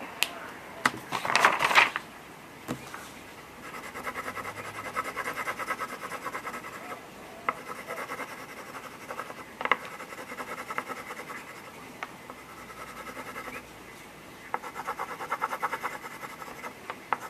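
A coloured pencil scribbling fast back and forth on paper, filling in a shape, in two long stretches. There is a loud rustle just after the start and a few light taps in between.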